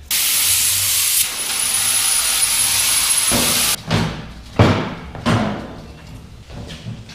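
A loud, steady hiss of air or spray, with a thin high whistle in it, for nearly four seconds. It cuts off suddenly and is followed by a few short scraping knocks from work on the bike.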